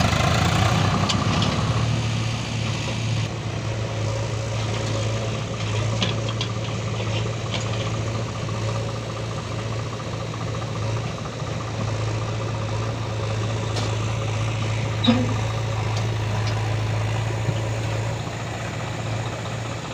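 Swaraj 744 FE tractor's three-cylinder diesel engine running with a steady low drone as it pulls a fully loaded trolley of mud. A couple of brief knocks come in the second half.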